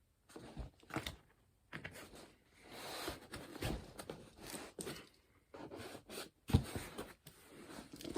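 Cardboard shipping box being handled and pulled open: irregular tearing, scraping and crackling, with a sharp knock about six and a half seconds in.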